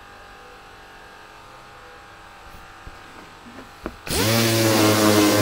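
An electric sander with 180-grit paper switches on about four seconds in, after a few light knocks. Its motor spins up and then runs steadily with a hiss of sanding, used here on filler in a plastic wheel trim.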